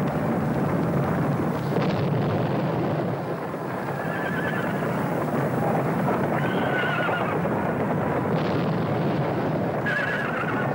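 Horses neighing several times, with wavering high calls about four, six and a half and ten seconds in, over a continuous noisy rush of galloping hooves.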